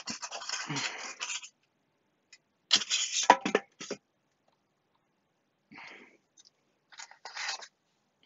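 White foam packing blocks scraping and squeaking against a laser engraver's metal frame and a cardboard box as they are pulled apart by hand, in several short bursts, the loudest about three seconds in.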